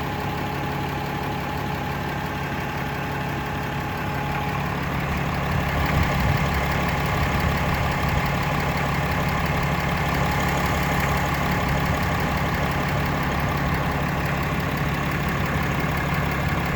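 2018 Cummins 6.7 L inline-six turbodiesel idling steadily, a brand-new engine with a random rattle or knocking ping at idle. The sound grows louder and fuller about five seconds in.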